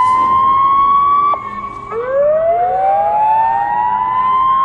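Sirens with two slightly offset voices. They hold a high steady pitch, cut off abruptly about a second in, then wind up again from low to high over about a second and a half and hold at the top.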